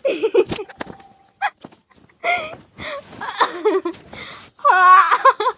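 A woman laughing in several short bouts, the last one high and wavering, with a sharp click about half a second in.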